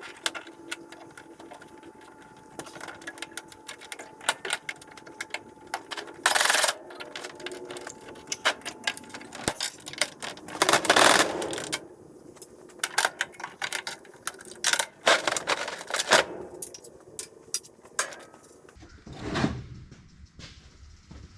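Fast-forwarded metalwork on an aluminum ramp hinge: a power tool humming with two louder bursts of cutting, amid rapid metallic clicks, clanks and knocks as the hinge pins are cut and the hinge is worked apart.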